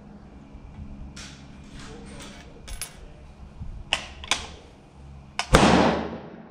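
Metallic clicks and rattles of a Black Creek Labs Bison MRX .223 rifle and its magazine being handled, then two sharp clacks as the action is worked. About five and a half seconds in, a single gunshot, the loudest sound, rings out with a long echo under the range roof.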